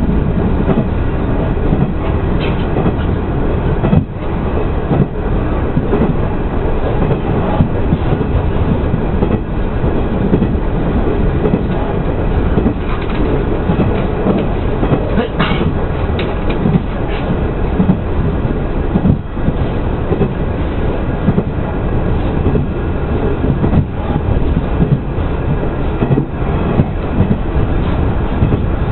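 Train running along the track, heard from inside the passenger car: a steady rumble of wheels on rail, with now and then a clack as the wheels cross rail joints.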